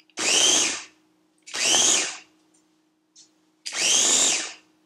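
Electric mini food chopper pulsed three times while whipping butter, each run short, its motor whine rising as it spins up and dropping as it stops.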